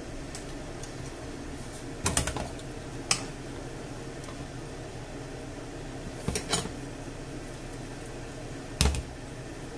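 Scattered clinks and knocks of a ceramic plate and a metal spoon against a frying pan as a Spanish omelette is slid off the plate back into the pan: a few clinks about two seconds in, one a second later, a pair past halfway and one near the end.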